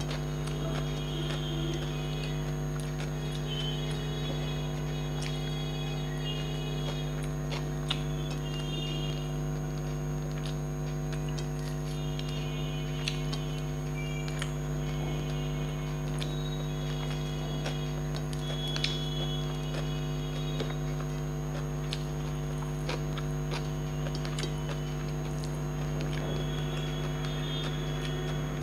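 A steady electrical hum, with faint chewing and small clicks of a person eating rice by hand.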